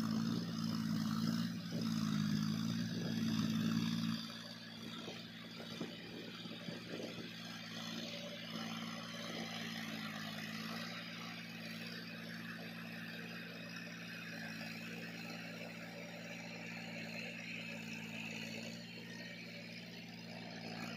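John Deere 5050D tractor's three-cylinder diesel engine running steadily under load while it drives a rotavator through waterlogged soil. It is louder for the first few seconds, then drops to a lower, even hum.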